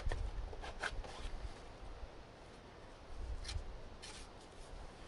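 A few faint scrapes and clicks from a knife and a hand-carved wooden throw stick being handled, clustered in the first second and again past three seconds in, over a low rumble.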